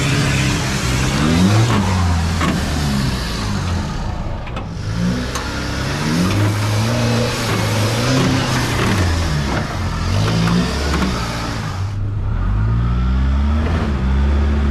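A four-wheel-drive's engine revving up and down repeatedly as it works over a rough off-road track, with a rushing noise over it that cuts off near the end.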